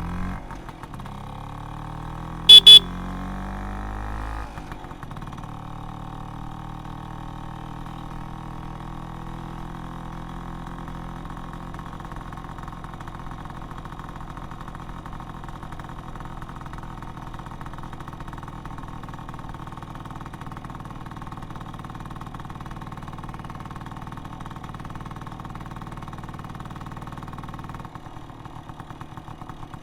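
Aprilia Habana 125 scooter engine running, its speed changing in the first few seconds and then settling to a steady idle. Two short, loud beeps of the scooter's horn sound about two and a half seconds in.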